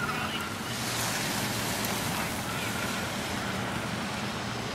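Steady rushing wind noise on the microphone, with a low steady hum underneath and faint distant voices.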